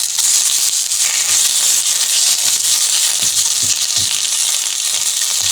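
Karpooravalli (Indian borage) leaves, green chilli, ginger and coriander sizzling as they sauté in hot oil in a pan: a steady high hiss, with a few soft knocks from stirring in the second half.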